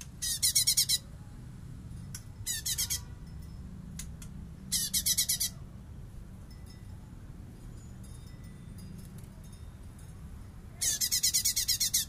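Cungkok leafbird singing in bessetan style: four short bursts of fast, high repeated notes, each lasting under a second to about a second, with the longest near the end.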